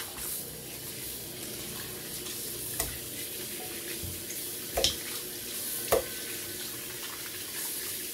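Kitchen tap running steadily into a stainless steel sink as raw chicken pieces are rinsed and rubbed by hand in a bowl. Three short knocks come about three, five and six seconds in.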